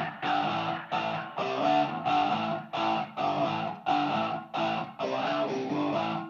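Rhythmic electric guitar chords about twice a second, each cut short, run through a talkbox plugin whose automated vowel setting gives them a shifting, wah-like vocal colour.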